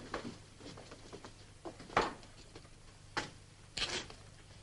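Scattered footsteps and small knocks over a faint steady hum, with one louder knock about two seconds in and a short scuffing sound near the end.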